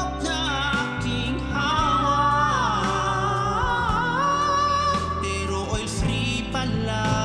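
A man singing a Tagalog ballad line with long held, wavering notes over instrumental backing, with a backing voice echoing the last word.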